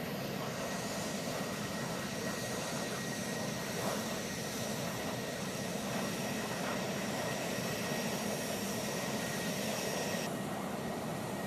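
Jet engines of A-10 Thunderbolt II and F-16 fighters running on the runway: a steady roar with a high, steady whine. One of the high tones cuts off suddenly near the end.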